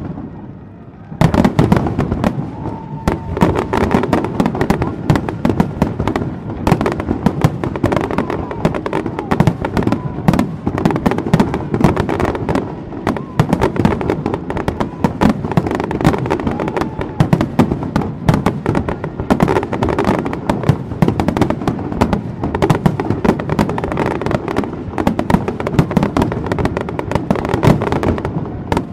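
Fireworks display: after a brief lull, a dense, continuous barrage of rapid bangs and crackling starts about a second in and keeps on, many explosions a second.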